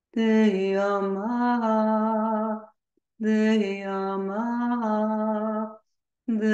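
A woman's voice chanting or toning without words: long sustained notes in phrases of about two and a half seconds with short breaths between, each phrase stepping up and down a little in pitch. Two full phrases, and a third begins near the end.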